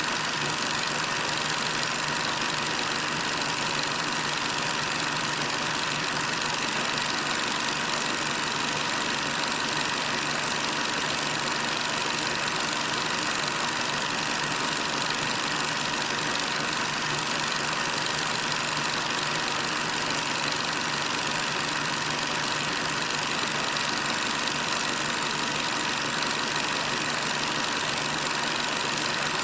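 A steady, unchanging mechanical drone with hiss, holding the same level throughout.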